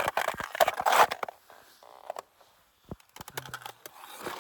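Footsteps crunching on glacier ice and snow: a quick run of irregular crunches in the first second, then a few scattered ones.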